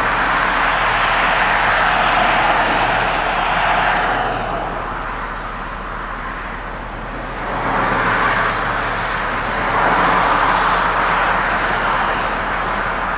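Road traffic: cars passing on a multi-lane road, tyre and engine noise swelling and fading as vehicles go by, with a lull just before the middle and two more swells after it.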